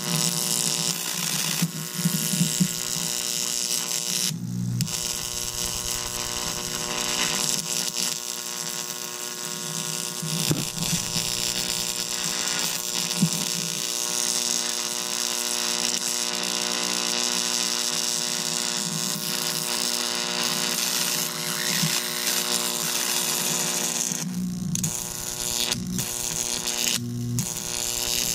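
12,000-volt electric arcs buzzing and crackling where the electrodes meet both ends of an AA battery, over a steady electrical hum. The arcing breaks off briefly about four seconds in and twice more near the end.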